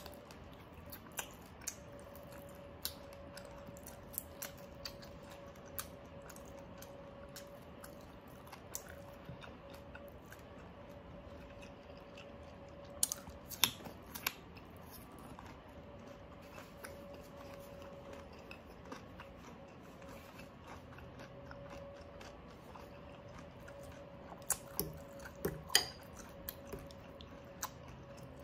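Close-miked chewing of crispy pork leg eaten by hand: soft wet mouth sounds with scattered crunches and smacks, a few louder crunches about halfway through and again near the end. A faint steady hum lies underneath.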